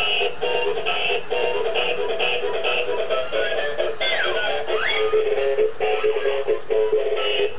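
Musical walking plush toy playing its built-in electronic tune through a small speaker, thin with no bass, in short repeating notes. A falling and then a rising sliding note come about four to five seconds in.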